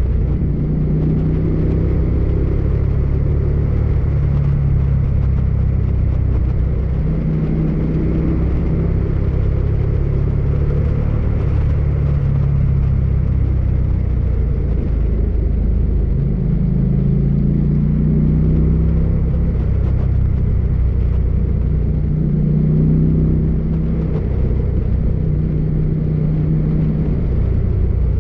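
Motorcycle engine running at road speed under a steady low rumble, its note rising and falling a few times as the throttle changes.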